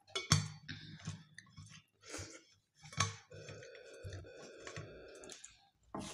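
Scattered sharp clicks and clinks of steel tableware: plates, bowls and a steel flask handled at the table, with soft sounds of eating by hand between them. Two taps, one just after the start and one about three seconds in, stand out as the loudest.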